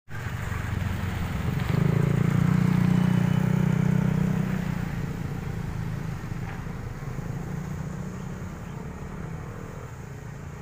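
A motor vehicle engine running steadily. It grows louder about two seconds in, holds for a couple of seconds, then slowly fades.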